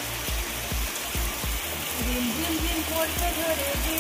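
Heavy rain pouring steadily, with background music carrying a steady low beat over it.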